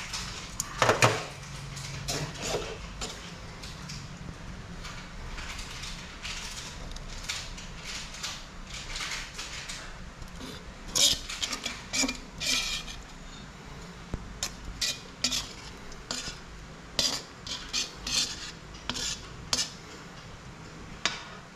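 Metal tongs clinking against a wok as cooked crabs are lifted out. About halfway through, a quicker run of short, sharp scrapes and knocks follows as garlic-butter sauce is scraped out of the tipped wok onto the crabs.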